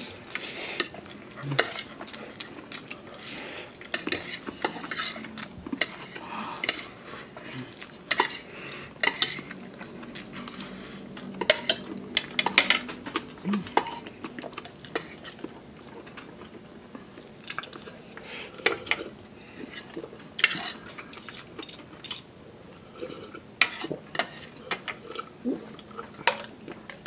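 Metal cutlery clinking and scraping against a dish during a meal, a run of irregular sharp clicks with brief pauses.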